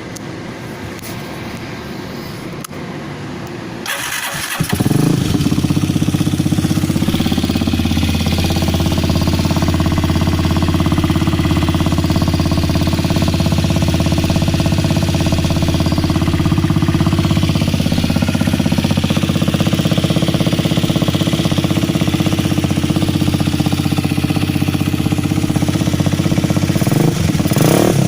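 Kasinski Mirage 150 motorcycle engine being started: a few seconds of quieter cranking, then it catches about four seconds in and settles into a steady idle with a deep exhaust note. The revs rise briefly near the end.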